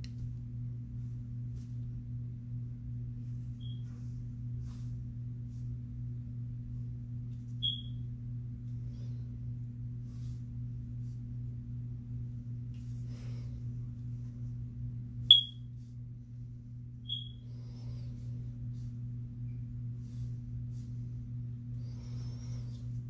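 A steady low hum, with four short, high-pitched chirps, the loudest about fifteen seconds in.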